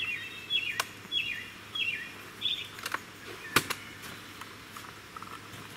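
A bird singing a series of about five down-slurred whistled notes, one every half second or so, over the first two and a half seconds. Sharp metallic clicks from a tin of airgun pellets being handled come a few times, the loudest about three and a half seconds in.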